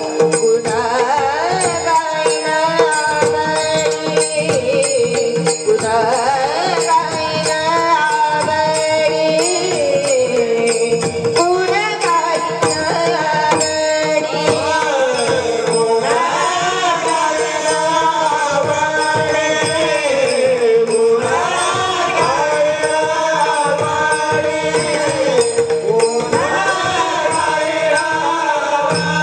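A girl singing a Marathi devotional bhajan in long, gliding melodic phrases over a steady drone. Light percussion ticks keep an even beat throughout.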